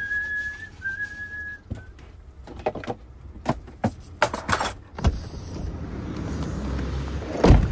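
A person whistling a few held notes, followed by clatter and knocks as things are moved about inside a camper van. The van door then opens onto low outdoor traffic and wind noise, and a loud thump near the end as the door shuts.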